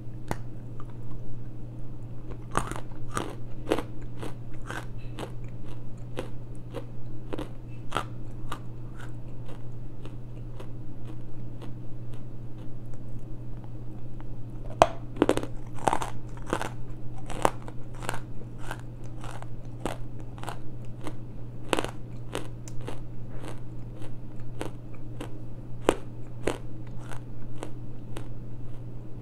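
Close-miked crunching of a hard, granular lump of elephant clay being bitten and chewed: a run of crisp crunches, roughly one to two a second, over a low steady hum.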